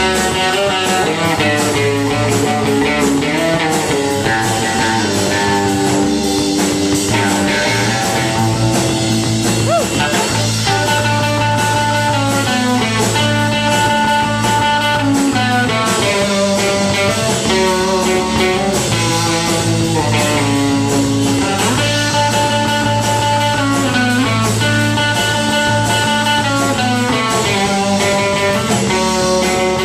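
Live rock band playing loud, an electric guitar to the fore with held melodic notes over a steady bass line.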